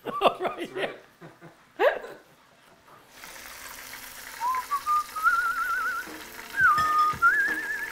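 A man whistling a tune, held notes with a wavering vibrato, stepping up and down in pitch, starting about four seconds in. Before it come a few short wordless vocal sounds, and faint clicks of kitchen handling run underneath.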